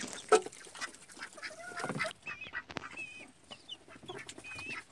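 Ducks quacking and baby chicks peeping, with short high peeps coming several times in the second half.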